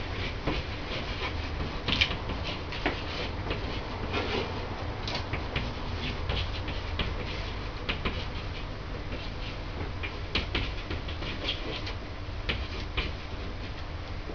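Marker pen squeaking and scratching across a painted wall as words are written: a run of short, irregular strokes.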